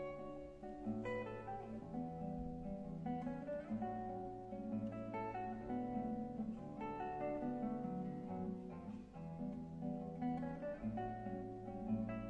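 Solo classical guitar played fingerstyle: a Brazilian choro, with held bass notes under a running melody of quick plucked notes.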